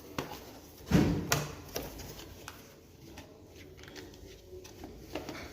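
Handling noise from unboxing a phone: a sharp knock about a second in and another just after, then scattered light clicks and taps from the box and packaging.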